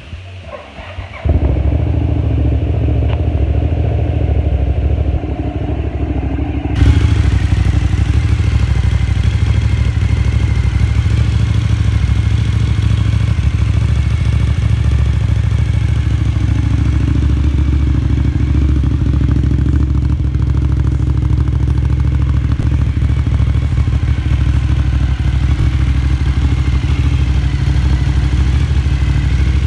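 2005 Cagiva Raptor 1000's Suzuki-built V-twin, breathing through twin Remus Grand Prix silencers, starts about a second in and settles into a steady idle. It gets louder about seven seconds in, then idles evenly without revving.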